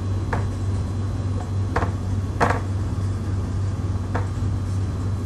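Marker pen writing on a whiteboard: four short scratchy strokes, over a steady low hum.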